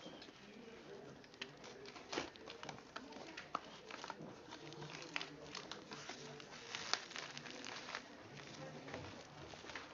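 Packaging being handled and opened: plastic and paper crinkling and rustling, with many irregular small clicks and snaps.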